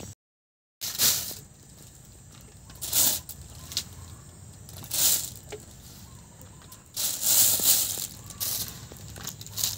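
Hands scooping loose shredded vegetable strips and pressing them into a plastic bag: rustling shreds and crinkling plastic in several short bursts, the longest near the end.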